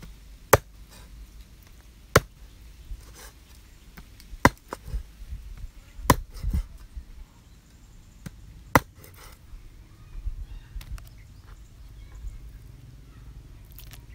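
Cleaver chopping raw frogs on a round wooden chopping block. There are sharp, separate strikes, five hard ones spread over the first nine seconds with softer cuts and taps between them.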